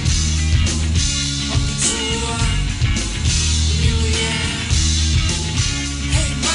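Rock music: a full band with electric guitars, bass and drums playing at a steady full level, with a melody line bending in pitch over it.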